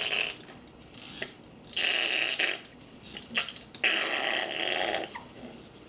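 Plastic squeeze bottle of barbecue sauce being squeezed out, sputtering and farting as air and thick sauce spurt from the nozzle in three squirts about two seconds apart.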